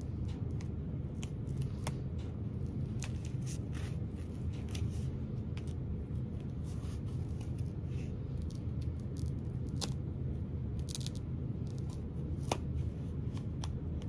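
Fabric scissors snipping through layered bag fabric in short, irregular cuts, over a steady low hum.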